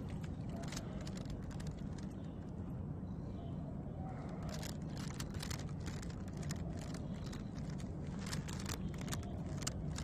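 Black-and-white domestic cat purring loudly and steadily while being stroked and massaged. Scattered light clicks and rustles, mostly in the second half, sit over the purr.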